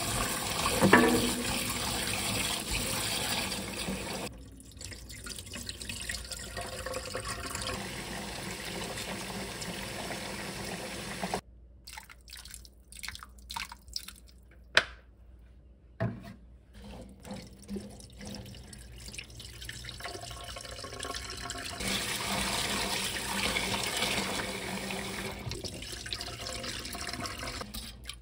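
Tap water running into a stainless steel bowl of cut garlic scapes as they are rinsed by hand, with splashing. About 11 seconds in the running stops for a few seconds, leaving drips and small clicks, then the water runs again.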